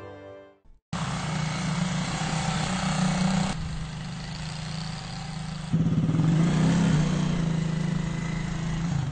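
Music fades out, and about a second in quad bike engines start up and run at a steady pitch. The engine sound shifts abruptly about three and a half seconds in and grows louder a couple of seconds later.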